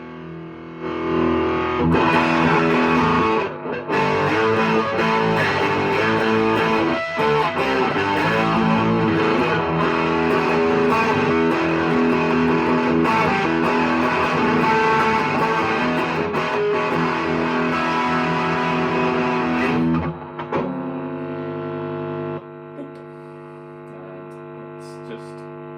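Electric guitar played through a practice amp on a high-gain, distorted setting, recorded through a phone's microphone. Dense playing runs for about twenty seconds, then a chord is left ringing out more quietly near the end.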